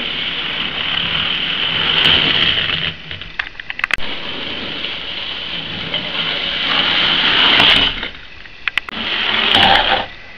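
Hornby model locomotive's small electric motor whirring as it runs along the track. The whir cuts off abruptly a few times, and sharp clicks and knocks come about three and a half seconds in and again a little before nine seconds.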